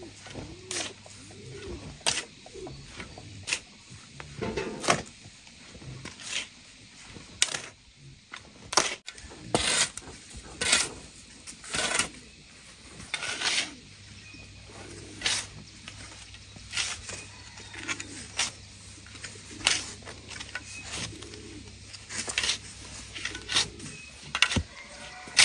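Metal spade scraping and scooping into a heap of loose grey sand on concrete, a short gritty stroke about every second and a half.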